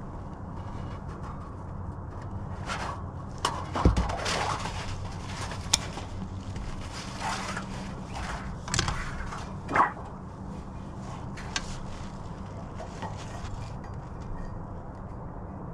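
Sheet-metal counter flashing and hand tools being handled: scattered knocks, clanks and scraping rustles, loudest about four seconds in and again near ten seconds, over a steady low hum.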